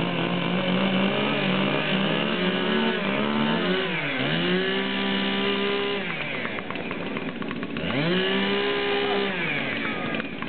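Chainsaw engine running at high revs. Its pitch drops and climbs back up twice, about four and eight seconds in, as the throttle is eased and opened again.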